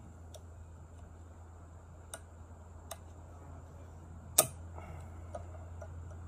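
Metal clicks and ticks of snap-ring pliers and a screwdriver working a hardened-steel retaining ring up a rear axle shaft, a few light clicks and one loud, sharp click about four and a half seconds in, over a steady low hum.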